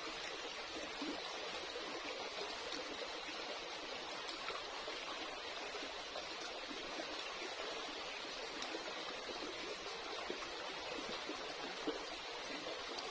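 Shallow rocky stream running: a steady, even rush and trickle of water.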